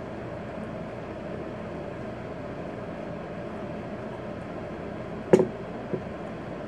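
Steady room noise, then about five seconds in a ceramic mug is set down on a table with a sharp knock, followed by a lighter tap.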